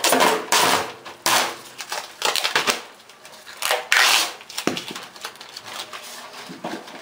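Clear plastic sheeting crinkling and rustling in irregular bursts as it is handled off a roll, with a sharp light knock about halfway through.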